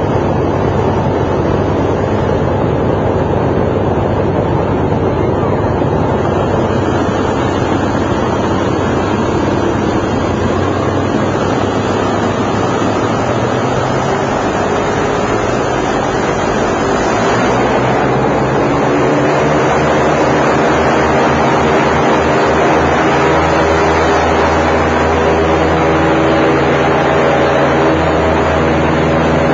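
Airboat engine and propeller running under way, with wind buffeting the microphone. A little past halfway it gets slightly louder and settles into a steady engine drone.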